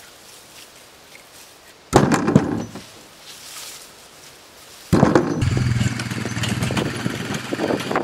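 A brief loud burst of noise about two seconds in, then a small petrol engine starts suddenly about five seconds in and keeps running steadily with a crackling edge.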